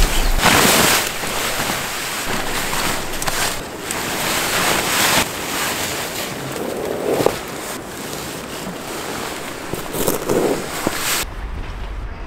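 Wind blowing on the microphone while a nylon tent fly rustles as it is thrown over and fitted to a dome tent, a noisy rush with several loud gusty surges. It cuts off suddenly near the end.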